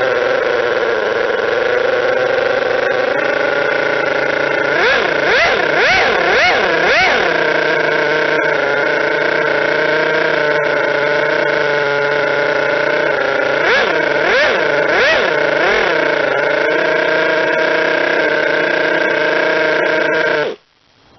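Model twin-rotor Wankel nitro engine running at a steady idle, blipped up and down in revs four times in quick succession twice, then cutting out abruptly near the end.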